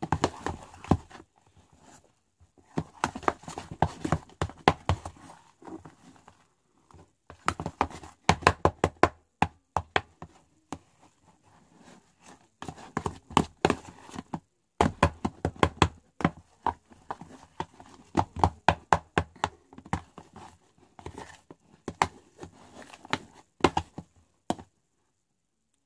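A spoon stirring a slime mixture of shaving foam and glue in a clear plastic tub, knocking and scraping against the plastic in quick runs of clicks with short pauses between. It stops about a second before the end.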